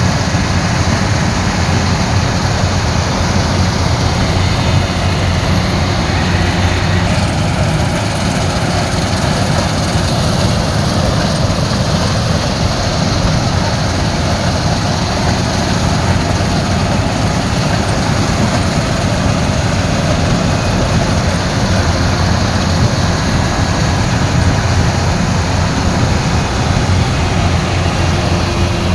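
Kubota combine harvester's diesel engine running steadily, with a deep, even hum and no change in speed.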